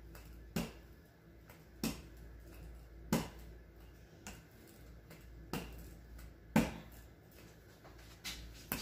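Hands pressing and patting pastry dough on a wooden butcher-block counter: short sharp taps about once a second over a low steady room hum.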